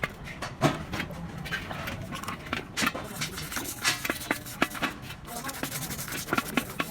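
Irregular metallic clicks and knocks of tools and starter-motor parts being handled during a repair, over a steady low hum.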